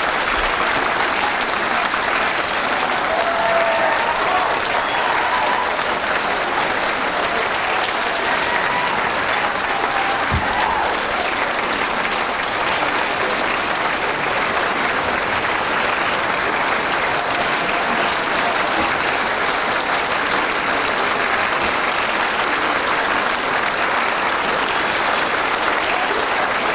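Audience applauding steadily for a sustained stretch, a dense, even clapping.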